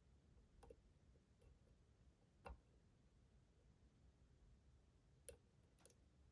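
Faint, scattered clicks of a lock pick working the pins inside a Schlage Primus Everest lock cylinder. There are four small ticks: one shortly in, one about two and a half seconds in, and two close together near the end.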